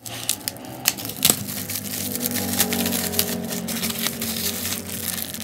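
Small plastic bag crinkling and crackling as fingers work it open, a scatter of light irregular clicks.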